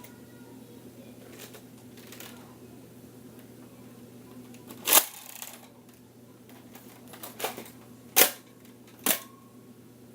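A few sharp clicks and knocks, like objects being handled, over a faint steady hum. The loudest comes about five seconds in, followed by three more over the next four seconds.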